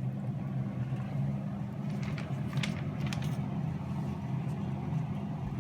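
A 240-volt electric fan set into an esky lid, running steadily on high speed with a constant motor hum and rushing air.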